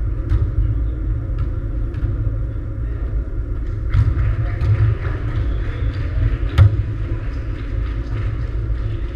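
Steady deep rumble of a sports hall with sharp thuds of a volleyball being hit during a rally, the loudest about four seconds in and again about six and a half seconds in, with fainter knocks between.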